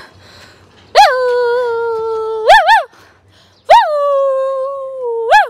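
A woman imitating an animal with her voice: two long howl-like calls, each starting high, dropping and then held steady for about a second and a half, each ending in two short yelps.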